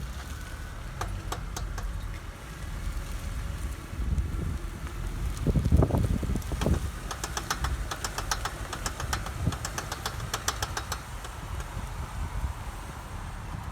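A car driving with a rapid, repeated clicking over the low rumble of the road and engine. The clicking comes thickest and fastest in the middle of the stretch. It is the kind of clicking that usually means a worn CV joint on the drive axle that is going out.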